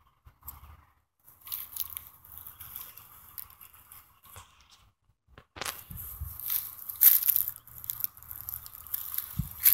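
Leaves and brush rustling and crunching close to the microphone as someone pushes into a leafy shrub beside a tree trunk, in irregular crackles that grow louder about halfway through.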